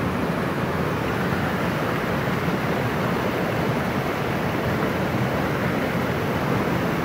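Steady rushing of a waterfall and stream.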